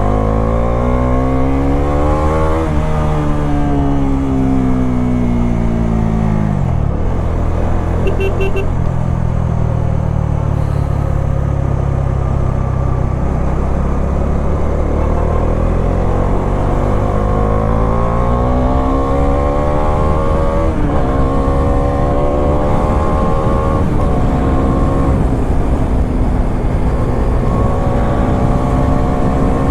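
Bajaj Dominar 400's single-cylinder engine under way: it revs up and drops at a gearshift, winds down and holds a low steady run, then pulls up through the gears again with two more quick shifts later on.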